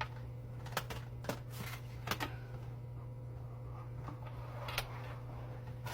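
Scattered light clicks and taps of plastic cat-water-fountain parts being handled and fitted together, a few close together in the first couple of seconds and one more near the end.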